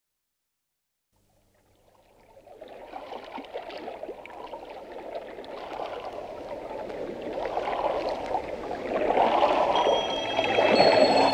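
A moment of silence, then a recorded stream sound effect of running water fades in and grows steadily louder as a song's introduction. High chime-like notes come in near the end.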